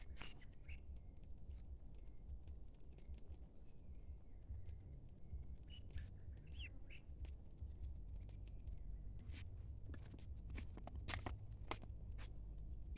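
Ducklings pecking at rice grains on sandy ground: scattered small clicks that come thicker in the last few seconds, with a few faint short chirps, over a low steady rumble.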